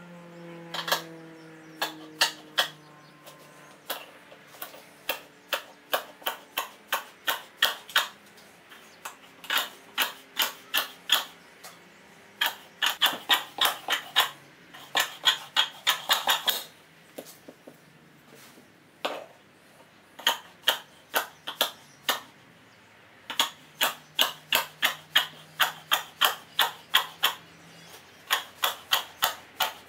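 Upholstery shears snipping through fabric, in runs of quick snips about two or three a second with short pauses between runs.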